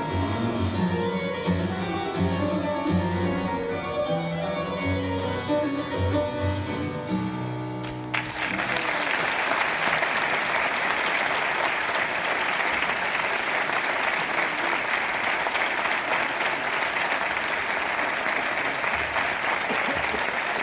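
Harpsichord music playing and ending about eight seconds in, followed straight away by steady audience applause.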